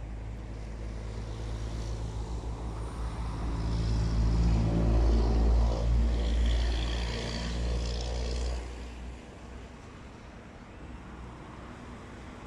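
A motor vehicle's engine passing by: a low hum that builds over a few seconds, is loudest about five seconds in and fades away about nine seconds in.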